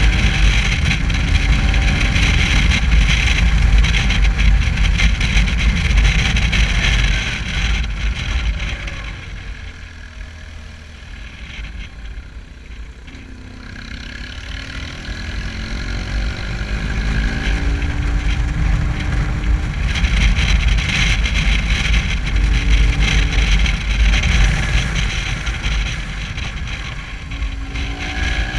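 Motorcycle engine running under way with strong wind noise on the microphone. The engine pitch glides up and down, and engine and wind grow quieter for several seconds near the middle as the bike eases off, then build again.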